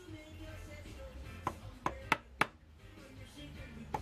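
Small hammer tapping a piston blank held in a lathe chuck to true it against a dial indicator: about five sharp, light taps, four in quick succession in the middle and one more near the end, over faint background music.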